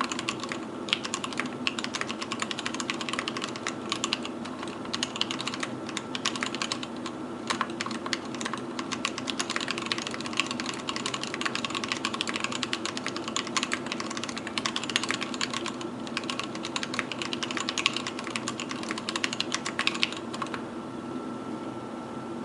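Continuous fast typing on an Anne Pro 2 mechanical keyboard with Gateron Brown tactile switches, PBT keycaps and an aluminium case: a dense, rapid patter of key clicks that stops near the end. A steady hum sits under it throughout.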